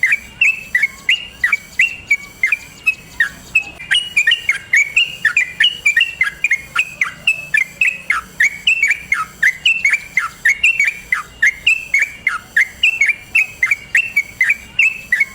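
Yellow-vented bulbul (trucukan) singing a long unbroken run of short, rapid notes, several a second, many of them falling in pitch: the continuous 'ropel' song.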